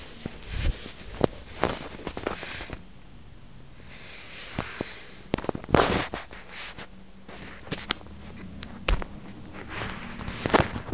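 Scattered sharp clicks and knocks over rustling, as a phone camera is handled and carried low across a carpeted room, with the loudest clicks about six and nine seconds in.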